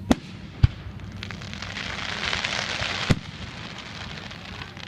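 Fireworks bursting: two sharp bangs in the first second, then a spreading crackle that builds in the middle and ends with another loud bang about three seconds in.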